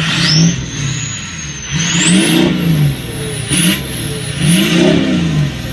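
Straight-piped 2003 Ford 6.0 Powerstroke V8 turbodiesel, exhaust cut off before the catalytic converter, being revved in about four throttle blips. A high turbo whistle climbs with each rev and slowly falls away near the end.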